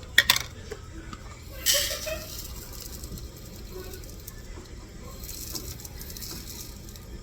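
Dried elderberries being scooped and poured out of a measuring cup, with a couple of sharp clicks near the start and a short rattling pour about two seconds in, then fainter rustling.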